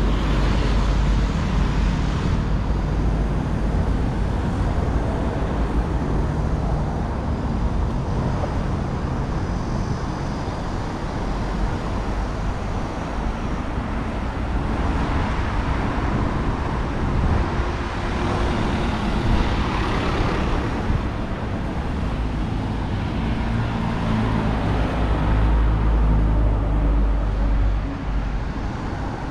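Road traffic: motor vehicles running and passing, a continuous low rumble that swells a few times as vehicles go by.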